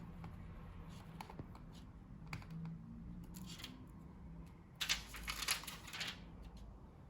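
Small clicks and taps from handling laptop parts and tools, with a louder rough scraping noise lasting about a second, about five seconds in.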